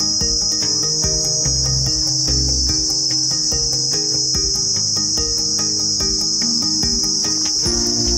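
Steady, high-pitched drone of forest insects, unbroken throughout. Under it plays music, with held melody notes that step from pitch to pitch over a bass line.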